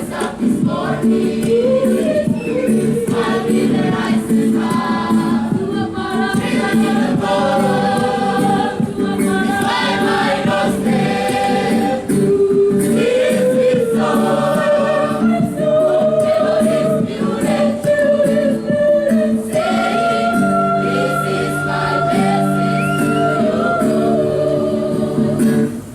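A choir singing in harmony with no clear lyrics, a melody line moving over steady lower voices, with one long held note about twenty seconds in.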